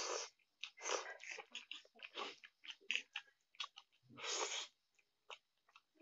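A person slurping instant noodles and chewing them with the mouth open: a long slurp at the start and another about four seconds in, with quick chewing smacks and clicks in between.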